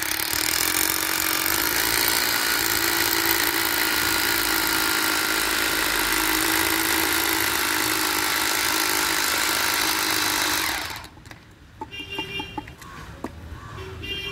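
Electric core drill running steadily as its core bit cuts wet into a concrete slab, then stopping abruptly about eleven seconds in. A few faint knocks follow.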